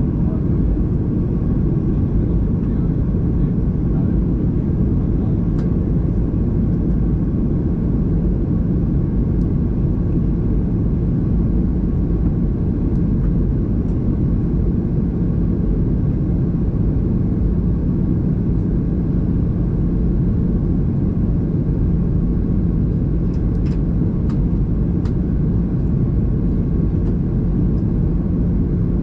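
Steady cabin noise inside a Boeing 737 airliner on approach: engine and airflow noise with a constant low hum. A few faint clicks come near the end.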